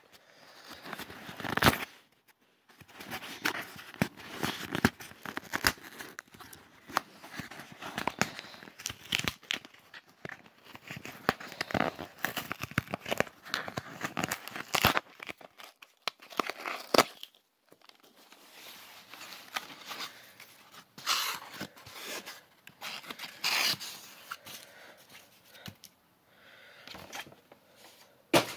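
Shipping box being opened by hand: tape and packaging tearing, with paper and plastic packing material crinkling, in an irregular run of tearing and crackling noises with a few brief pauses.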